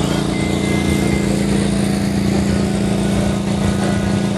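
A small engine running steadily, giving a constant low hum that does not change in pitch or level.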